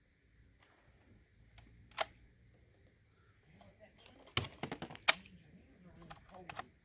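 Several sharp metallic clicks from handling a .22 rifle's action: one about two seconds in, then a quick cluster near the middle. Low voices mutter underneath.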